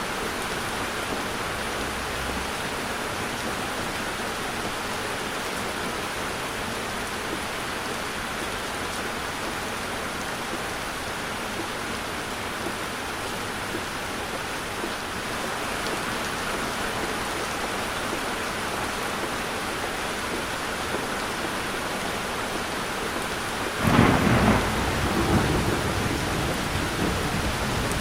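Heavy rain drumming steadily on a car, heard from inside the cabin. About three-quarters of the way through, a sudden louder rumbling surge rises over the rain for a couple of seconds and eases off.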